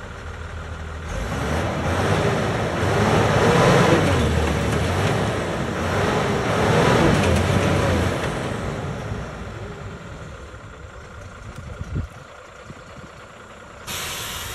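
Truck's engine revving up and down under heavy load, rising in level about a second in and easing off after about eight seconds, as the truck tries to drive out of the mud it is stuck in. A single low thud near the end.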